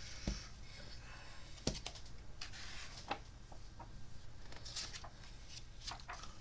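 Quiet room tone with a few faint, scattered clicks and soft rustles.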